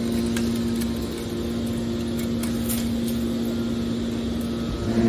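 Hydraulic metal baler's power unit running with a steady hum, with a few faint clicks.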